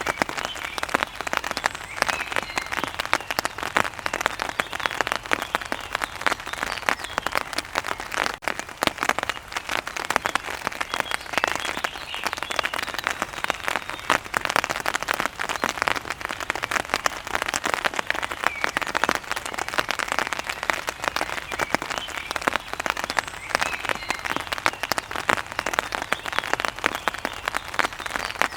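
Rain pattering on an umbrella: a dense, steady spatter of drops tapping on the fabric.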